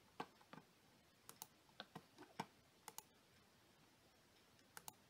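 About a dozen scattered, sharp clicks of a computer keyboard and mouse being worked, several coming in quick pairs, over a quiet room.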